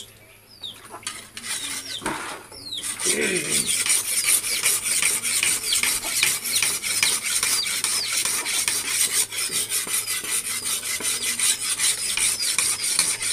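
A large knife blade being sharpened on a whetstone: quick, even back-and-forth scraping strokes that start about three seconds in and stop near the end.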